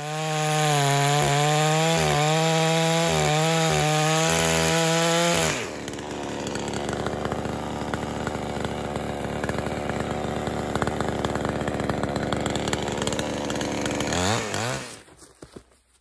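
Chainsaw at full throttle, running high and a little unsteady. About five seconds in it drops in pitch and turns noisy as the chain bites into a log, cutting under load. Near the end the revs fall away as the cut finishes.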